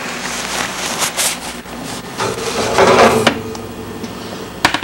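Metal baking sheet of cookies being slid out across the wire oven rack: scraping and rattling of metal on metal, loudest as a grating rub in the middle, then a sharp click near the end.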